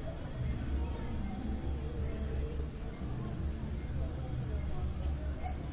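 Insect chirping: a high, even chirp repeated about three times a second, over a steady low hum.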